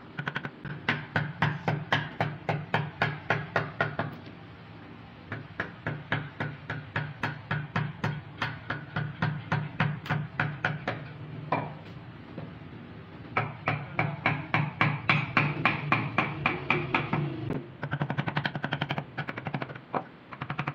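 Wooden mallet tapping the handle of a wood-carving chisel in quick, even strokes, about four or five a second, as the chisel cuts into a wooden panel. The strikes are louder near the start and again about two-thirds of the way through, softer in between.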